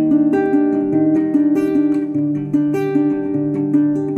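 Background music: acoustic guitar picking and strumming a steady run of notes.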